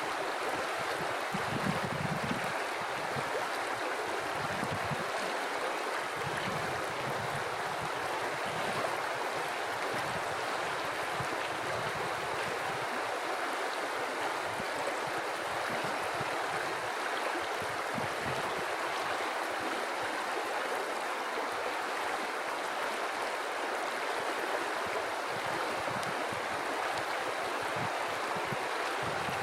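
River water flowing steadily over rocks, an even rushing with a low, fluttering gurgle underneath.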